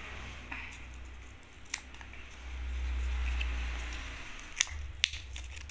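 Small folded paper lottery ticket being unfolded by hand: soft paper rustling with a few sharp crinkle clicks, and a low rumble that swells in the middle.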